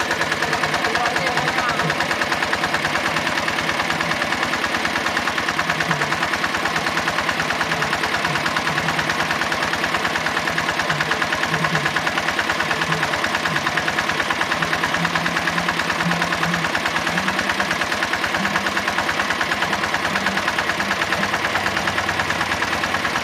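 Diesel engine driving an irrigation water pump, running steadily with a fast, even beat.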